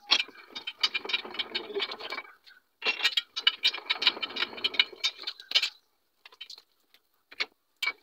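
Hand-cranked rubber sheeting roller's gears and rollers clattering as a slab of coagulated latex is pressed through the smooth rollers: two spells of quick rattling, each a few seconds long, then a pause with a few clicks.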